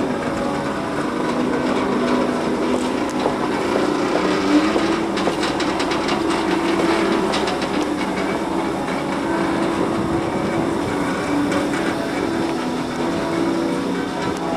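Footsteps of a procession walking along a paved street, with a slow-moving van's engine running beneath them.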